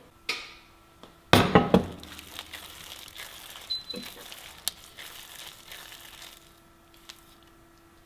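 Kitchen handling noises: a quick run of loud knocks and clinks about a second and a half in, then lighter clicks and rustling that die away after about six seconds.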